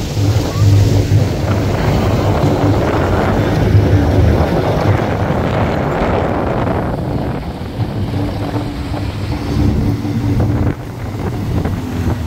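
Fishing boat engines running steadily, with wind buffeting the microphone and water rushing past. The rushing noise eases about seven seconds in, leaving the engines plainer.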